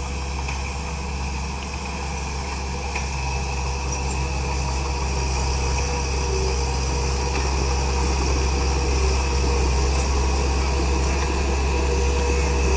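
Komatsu D31P bulldozer's diesel engine running steadily under work, growing slowly louder.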